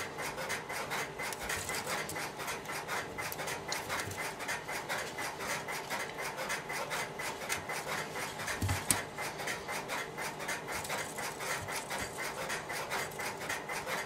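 Scratchy rubbing and rustling of thin insulated telephone wires as the twisted pairs of a 25-pair cable are pulled apart and handled, with one low thump partway through.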